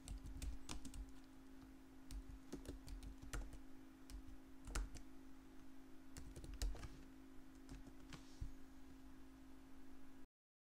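Computer keyboard keys clicking in irregular bursts of typing, over a faint steady hum. The sound cuts off to silence about ten seconds in.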